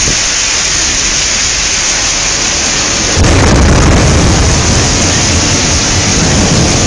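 Heavy rain pouring steadily; about three seconds in, a loud thunderclap from a nearby lightning strike breaks in suddenly and rumbles on under the rain.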